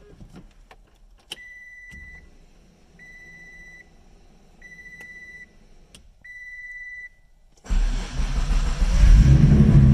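Warning chime in a 1997 Mitsubishi 3000GT VR-4 beeping four times as the key is turned, then the single-turbo 3.0 L V6 cranks and fires about three-quarters of the way in and keeps running loudly. It is a hot start with the engine already at about 184°F coolant temperature, on a Haltech Elite 2000 tune.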